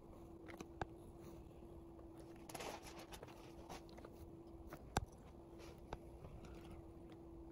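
Fine-tip pen scratching lightly on paper as a small drawing is sketched, with a few sharp taps of the pen tip, the loudest about five seconds in. A faint steady hum runs underneath.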